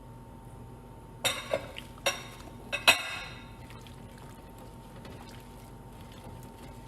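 About five quick clinks and knocks with splashes within two seconds, starting about a second in: cubed butternut squash and apple pieces going into a pot of boiling chicken stock, the bowl and spoon knocking against the pot.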